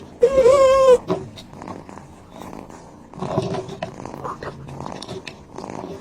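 A pet animal's long, wavering cry lasting under a second, followed about three seconds in by quieter, lower animal sounds.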